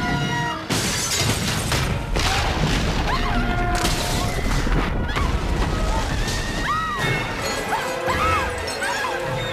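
A film soundtrack of music with several crashing, shattering impacts in the first few seconds, followed by short tones that rise and fall in pitch.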